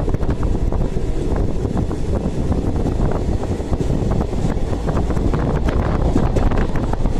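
Indian Railways express train in motion: a steady loud rumble of the moving train with scattered clicks and rattles, and wind buffeting the microphone.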